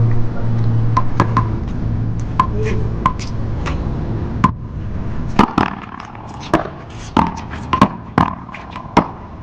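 One-wall paddleball rally: a run of sharp smacks of paddles striking the ball and the ball hitting the wall and court, about a dozen in all, coming quicker in the second half. A steady low hum sits under the first few seconds.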